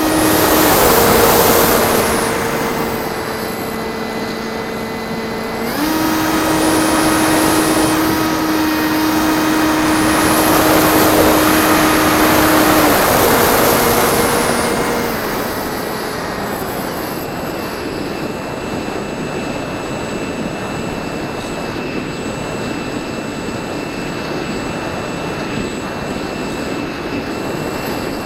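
Electric brushless motor and propeller of a Bixler 1.1 RC plane running in flight, the steady whine jumping between a lower and a higher pitch a few times as the throttle changes. Surges of rushing air noise come with it, and it settles quieter and steadier in the second half.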